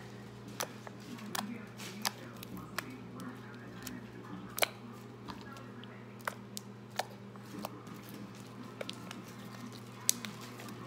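Homemade white slime being pressed and poked by hand, giving off irregular sharp clicks and pops over a steady low hum.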